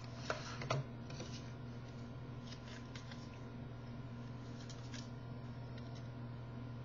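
Two sharp clicks in the first second, then scattered faint ticks and rustles of small handling noises, over a steady low hum.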